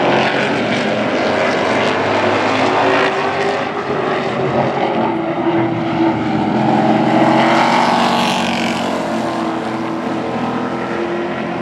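Pack of Supertruck race trucks' engines running at racing speed around the oval, the sound swelling and shifting in pitch as the trucks pass close by about eight seconds in.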